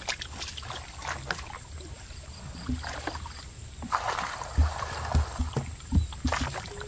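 Shallow muddy water sloshing and splashing, with small clicks and a wash of water about two-thirds of the way in, then a few dull thuds near the end.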